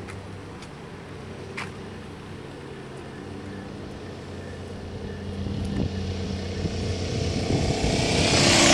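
A 283 V8 engine idling steadily. A louder rushing noise builds over the last few seconds and is loudest at the very end.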